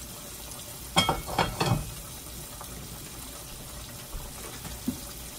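Food bubbling in a pot on the stove, with a brief clatter of a few knocks and a metallic clink about a second in.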